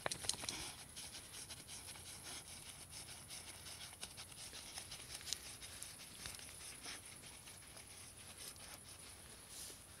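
Glen of Imaal Terrier digging in sandy soil: quick, irregular scratching and scraping of earth, busiest in the first second.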